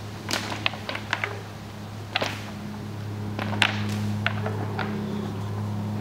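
Dry twigs and small aspen branches snapping as a rope is yanked down through the tree's crown: a string of sharp cracks, most of them in the first five seconds. A steady low hum runs underneath.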